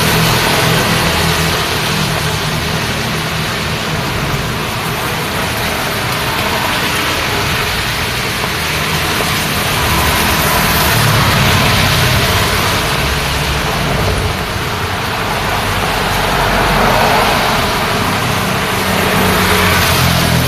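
Road traffic in the rain: a steady hiss of rain and wet tyres over the low hum of car and motorbike engines, swelling louder twice as vehicles pass.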